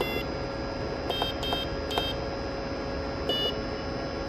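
Short, high electronic beeps, five at uneven intervals with the last one a little longer, over a steady machine hum that carries a constant tone.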